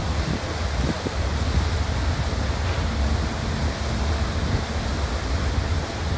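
Steady rush of wind and the ferry's churning wake, over a deep rumble.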